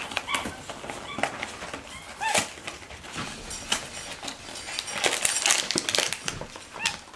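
Capuchin monkey giving a few short, squeaky chirps while plastic snack pouches and their cardboard box crinkle and rustle as they are pulled out, with the busiest crackling from about five to six seconds in.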